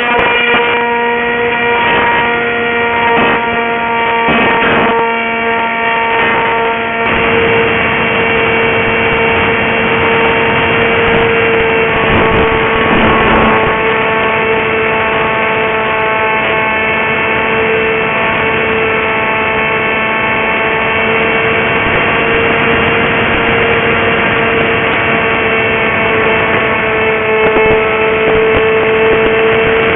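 Electric motor and propeller of a Goblin RC flying wing in flight, a steady high-pitched drone holding nearly constant pitch, heard through a cheap onboard camera's microphone. A few short noisy gusts break in during the first several seconds.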